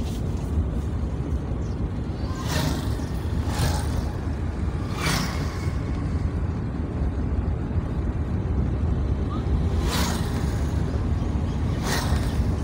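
Car driving along a paved road, heard from inside: a steady low rumble of engine and tyres, with about five short sharp knocks scattered through it.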